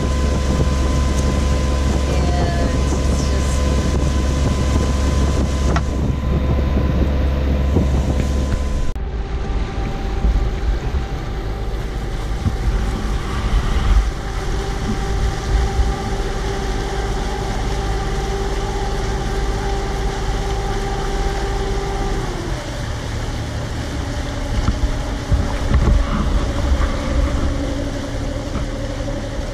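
Boat engine running steadily, with wind on the microphone. The engine's pitch jumps abruptly to a different steady note about nine seconds in, and again a little after twenty-two seconds.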